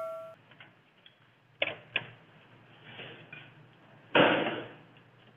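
Two short sharp clicks about a second and a half in, then a brief rustle about four seconds in, as a gloved hand handles the contactors and wiring in a motor control panel.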